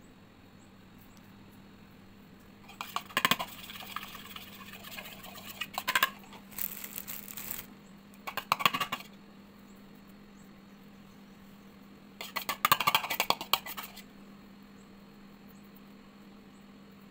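Metal spoon scraping and clinking against a bowl while softened butter is mixed with crushed garlic, in several short bursts.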